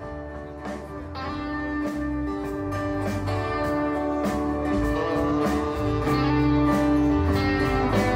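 Band playing a song's instrumental intro: guitar over bass and drums keeping a steady beat, growing louder as it fades in.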